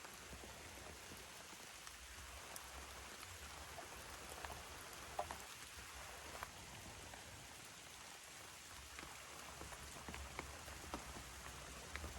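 Faint, steady rain falling on rainforest foliage, with scattered individual drips ticking through it.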